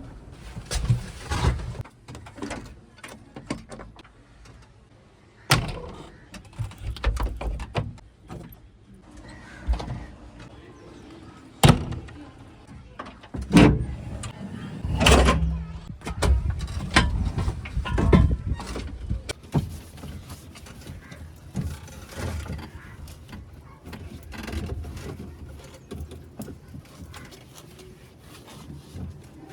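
JCB 3DX backhoe loader at work: a low diesel rumble that rises and falls, with irregular clanks and knocks, several of them loud, from about 5 s to 16 s in.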